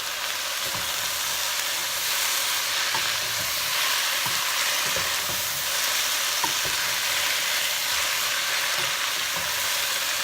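Vegetables sautéing in olive oil in a stock pot with diced tomatoes and green chilies added, sizzling steadily, with soft irregular knocks of a spoon stirring.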